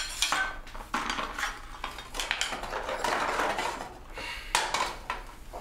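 Irregular clattering and clinking of small hard objects being handled and set down, with rustling between the knocks and one sharper knock near the end.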